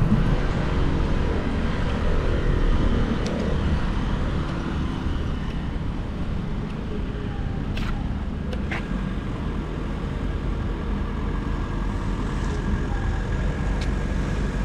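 City street traffic heard from a moving bicycle: a steady wash of passing cars with a low rumble underneath. Two short clicks come about eight seconds in.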